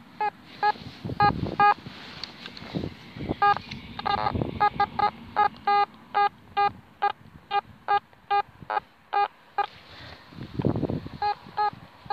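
Makro Racer metal detector sounding short repeated beeps of one steady pitch as the coil sweeps over a buried target. The beeps come unevenly, two to four a second and bunched in places: a very jumpy signal. A few low rumbles of wind or handling sit beneath them.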